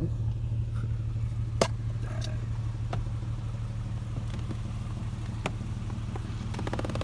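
Car engine idling steadily, with a few sharp clicks over it.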